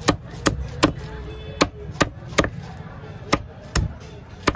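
Cleaver chopping through fish flesh and bone on a wooden chopping block: about nine sharp strokes, two or three a second, with a short pause midway.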